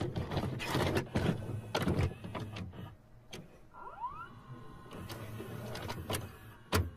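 VCR mechanism loading a VHS cassette: a run of irregular mechanical clunks and clicks with motor whirring, a short rising whine about four seconds in, and a sharp click near the end.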